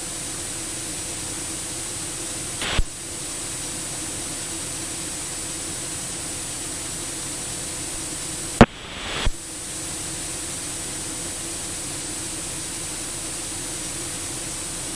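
Steady hiss of the cockpit radio and intercom audio feed, with a faint steady drone underneath. It is broken by short clicks about three seconds in and twice around nine seconds, where transmissions key on and off.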